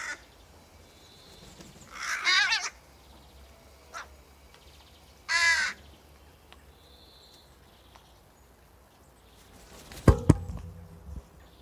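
Two calls from a raven, the first about two seconds in and a shorter one about five and a half seconds in. Near the end comes a burst of loud, low wingbeats as another raven flies in close.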